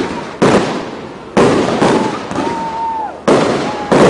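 Aerial fireworks shells bursting: five sharp bangs in about four seconds, each dying away in a crackling tail, with a thin whistling tone in between.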